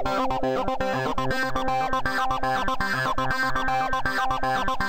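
Electronic synthesizer music playing from a Reason sequence at 120 BPM: a fast, repeating run of short stepped synth notes over a steady bass pattern.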